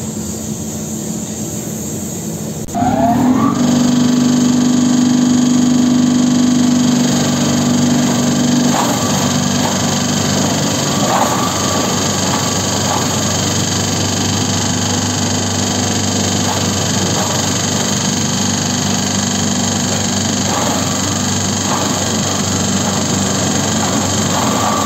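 Electric-motor-driven vegetable waste shredder running, getting louder suddenly about three seconds in with a brief rising whine, then a steady hum. Once vegetable waste is fed into the hopper, it shreds with a coarse grinding noise and occasional sharper crunches.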